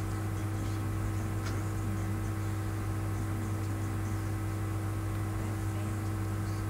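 Steady low electrical hum with a few fixed tones over even hiss, unchanging throughout; room and recording-chain noise with no distinct events.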